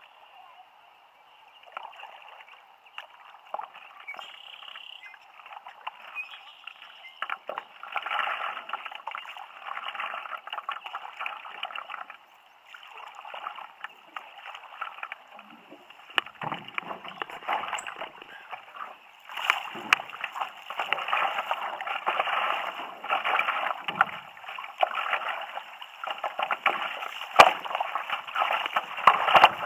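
Water splashing and sloshing against a stand-up paddleboard as it is paddled downriver, with small irregular splashes throughout. It grows louder about two-thirds of the way through.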